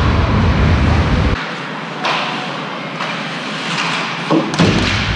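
A steady noisy wash of game ambience with a few sharp knocks. The low rumble drops away about a second and a half in and returns near the end, where two knocks come close together.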